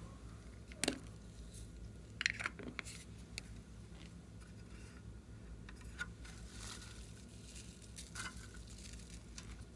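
Slime being handled and mixed by hand: scattered sticky clicks, small squishes and crackles, the sharpest about a second in and a short cluster just after two seconds, over a low steady hum.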